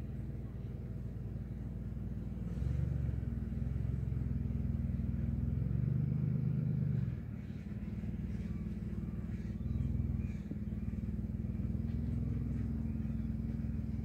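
A low rumble that swells and eases several times, with a steady low hum running through it.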